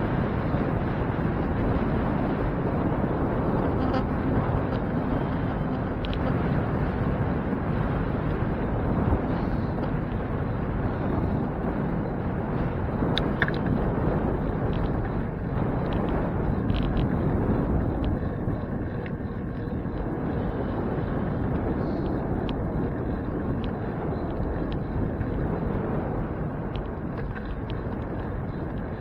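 Steady rumbling wind and road noise from riding a bicycle, with a few faint ticks.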